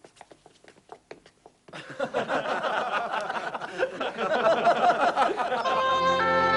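A group of young men laughing and jeering together, starting suddenly about two seconds in. Near the end, music comes in with steady held notes of a wind instrument.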